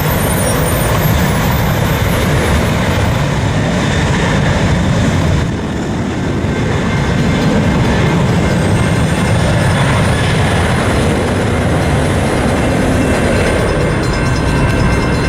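Southwest Boeing 737 jet engines at takeoff thrust: loud, steady jet noise as the airliner departs. A faint high whine rises about halfway through and fades near the end.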